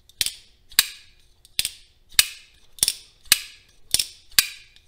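Demko AD20S folding knife with titanium scales being opened and shut over and over, its Shark Lock and blade snapping into place with sharp metallic clicks about twice a second. This is the lock being tested after reassembly.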